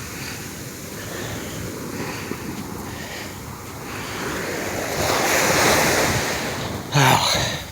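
Small ocean waves breaking and washing up on the shore, swelling about five seconds in, with wind rumbling on the microphone. A brief, louder sound cuts in near the end.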